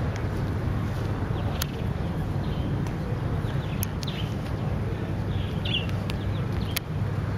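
Steady low wind rumble on the microphone, with a few short bird chirps and occasional sharp clicks over it.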